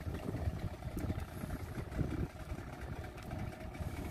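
Fishing boat's engine idling steadily under a low, uneven rumble.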